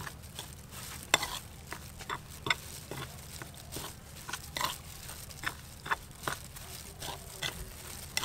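A metal spoon stirring and scraping a gritty chili spice mix in a small bowl. The spoon clinks against the bowl in irregular strokes, two or three a second.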